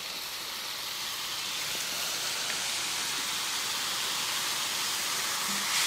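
Sauce boiling and sizzling in a hot pan, a steady hiss that grows slightly louder; it is being brought to the boil and thickened with starch.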